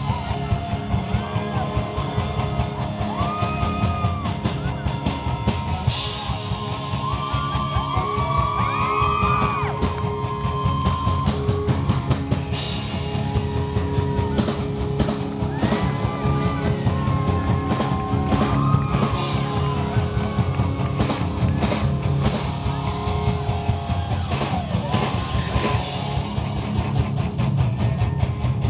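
Live rock band playing a song loud through the PA: electric guitars, bass and drum kit, with a male lead vocal over them. Heard from within the audience.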